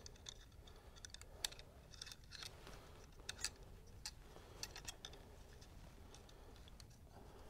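Faint, irregular light metal clicks and ticks as a snap ring is handled and worked into place in the hub of a Harley-Davidson Sportster clutch.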